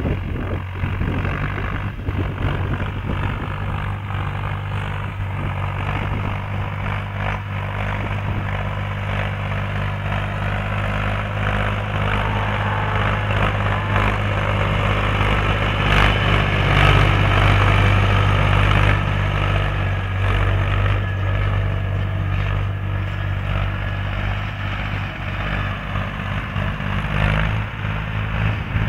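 Ursus C-360 3P tractor's three-cylinder diesel engine running steadily under load while it pulls harrows over dry ploughed ground. It grows louder as the tractor comes close, about halfway through, then fades as it moves away.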